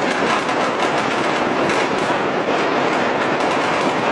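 Countless firecrackers and fireworks going off across a city at once, merging into a continuous dense crackle of rapid small pops with no pauses.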